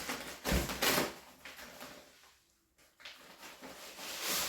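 Packaging being handled while unboxing: a couple of knocks and rustles in the first second, a pause, then a longer rustle building near the end.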